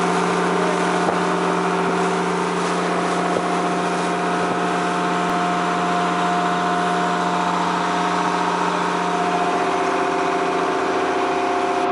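Fishing boat's engine running steadily as the boat cruises, a constant drone over the rush of water from the wake.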